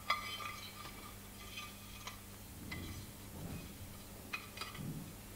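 A handful of light clicks and clinks of small parts being handled and set down on a workbench during motor reassembly.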